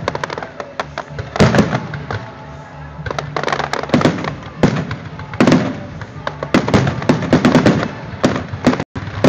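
Aerial fireworks bursting: a rapid, irregular series of sharp bangs, several bunched close together, with the sound cutting out for a moment near the end.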